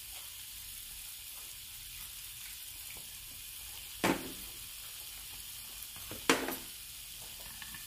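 Chunks of black pork sizzling steadily on a grill plate, a continuous high hiss. Two short, sharp knocks sound about two seconds apart in the second half.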